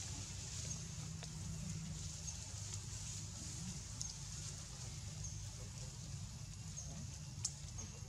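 Steady outdoor background noise, a low rumble under a high hiss, with a few faint sharp clicks and short high chirps.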